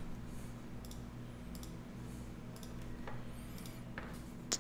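A few sparse clicks of a computer mouse and keyboard, the sharpest near the end, over a faint steady low hum.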